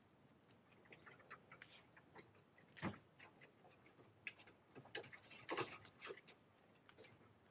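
Wood fire crackling: faint, irregular pops and snaps, with one sharper pop about three seconds in and a cluster of snaps a little after five seconds.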